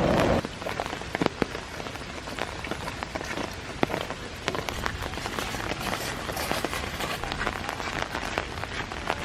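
Steady rain falling, with many separate drops ticking sharply as they land.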